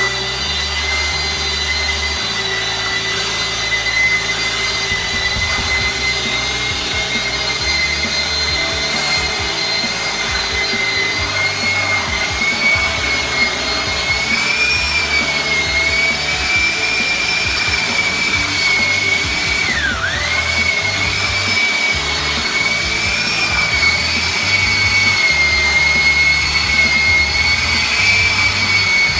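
Handheld electric power tool running at full speed with a steady high whine; about two-thirds of the way through the pitch dips sharply and recovers, as the tool is pressed into the work.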